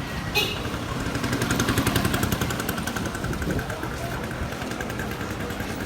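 Small motorbike engine passing close by on the street, its fast, even firing pulse swelling to its loudest about two seconds in and then easing off.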